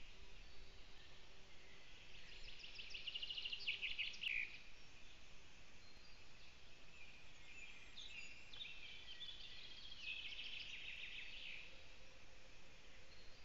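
A small songbird singing in the forest: two phrases of quick, repeated high notes, one starting about two seconds in and another about eight seconds in, over faint steady background noise.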